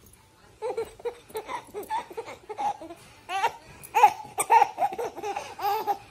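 A baby laughing: a quick run of short, high-pitched giggles and squeals, loudest about four seconds in.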